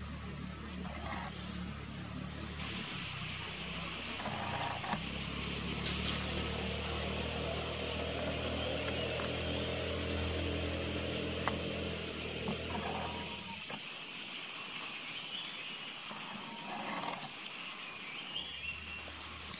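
A steady low engine hum, like a vehicle idling, which cuts out about 13 seconds in. Under it runs a steady high hiss of forest ambience with a few short bird chirps.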